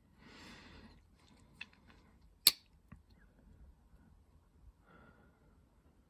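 A soft breath, then a few light handling clicks and one sharp snap about two and a half seconds in as the open spear blade of a Case XX swell-center moose slipjoint pocket knife is closed.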